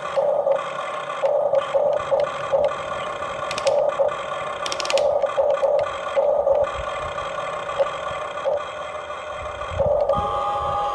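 Small electric gear motors of a Huina 1593 RC excavator whining in short stop-start spells as its functions are worked, with a few sharp clicks of plastic parts about four to five seconds in.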